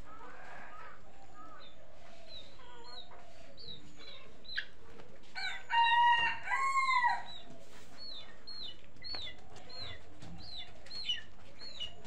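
Chickens: a rooster crows once about halfway through, a loud two-part call. Thin, high, falling peeps repeat about twice a second underneath.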